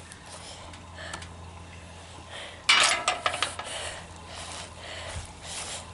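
A brief clatter of clicks and knocks from hard objects being handled, a little under three seconds in, over faint handling noise and a low steady hum.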